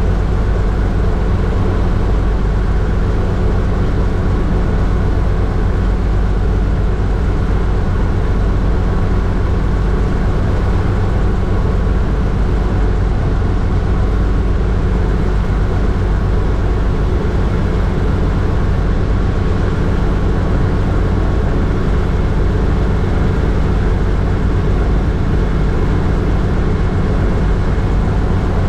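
Hughes 269 light helicopter in low cruise flight: its four-cylinder piston engine and rotors make a loud, steady drone with a strong low hum that does not change.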